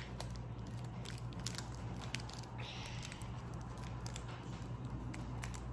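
Fingers picking at the tape-wrapped packaging of a small die: scattered small crackles and clicks, over a steady low hum.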